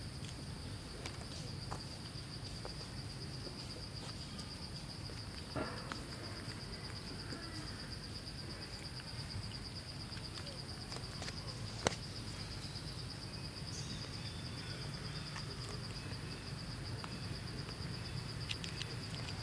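Insects chirring in a steady, high-pitched drone, with a few sharp clicks, the loudest about two-thirds of the way through.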